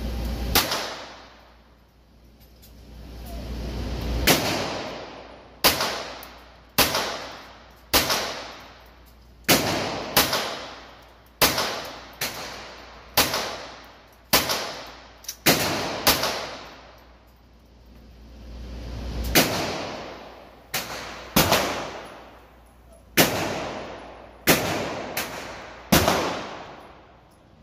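Glock 44 .22 LR pistol fired as single shots, about twenty in all, mostly a second or so apart with a few pauses of several seconds, each shot ringing off the walls of an indoor range.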